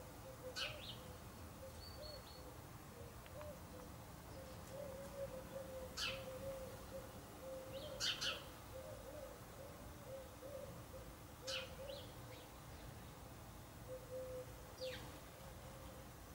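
House sparrow chirps: five short, sharp calls spaced a few seconds apart, over a faint steady low tone.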